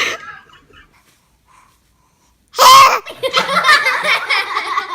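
A baby sneezes once, loud and sharp, about two and a half seconds in, followed by laughter.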